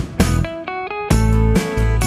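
Background music with a steady beat; a deep bass comes in about a second in.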